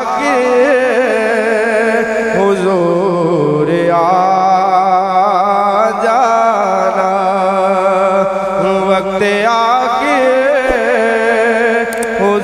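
A male naat reciter singing long, wavering, drawn-out notes of an Urdu naat into a microphone.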